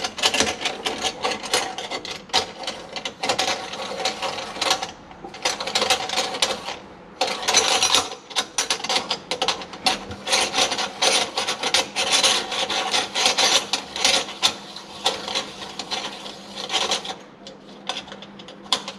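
Threaded metal retainer of a kitchen sink basket strainer being spun by hand up the strainer's threaded body: a dense run of metal-on-metal scraping and small clicks, with a few short pauses.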